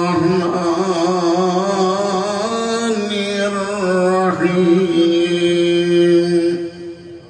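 A man chanting Arabic recitation in long, held melodic notes with a wavering vibrato. The voice trails off near the end.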